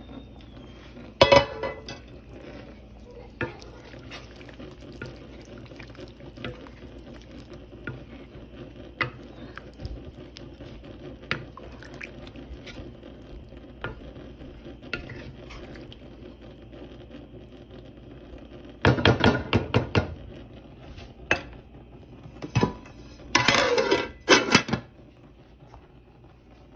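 Cookware clatter from a metal pot of kofta curry, its lid and a serving spoon: scattered light clinks, then two loud bursts of rattling clatter, the first about two-thirds of the way through and the second shortly before the end.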